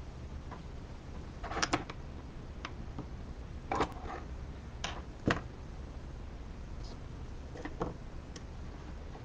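Pens being set down on a tabletop: a few light clicks and taps, a pair of them and then single ones every second or two, over a steady low hum.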